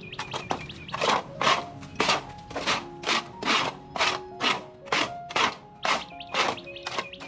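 Rhythmic rubbing or scraping strokes, about two a second, evenly paced, over soft background music.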